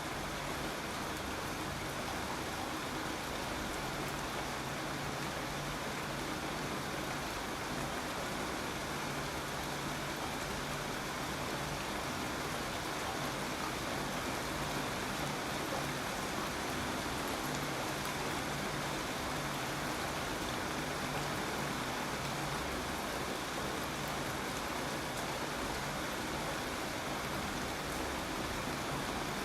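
Steady rain falling and pattering on a surface, an even hiss with no breaks or changes.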